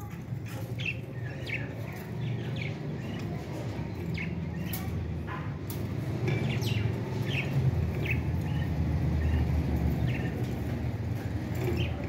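Small caged parrots chirping: many short, scattered chirps, over a steady low rumble that grows a little louder about halfway through.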